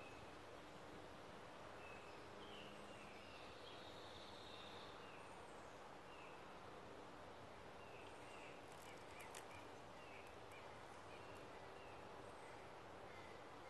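Faint outdoor background with scattered short bird chirps throughout. A brief cluster of faint clicks comes about nine seconds in.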